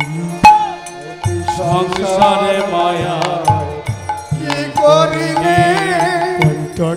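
Bengali kirtan music: a steady low drone under a wavering, ornamented melody in two phrases, with frequent hand-drum strokes.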